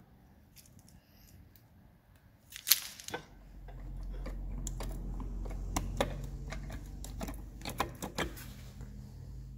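Scattered sharp clicks and knocks, the loudest about two and a half seconds in; from about three seconds a low steady hum sets in and keeps going under more clicking.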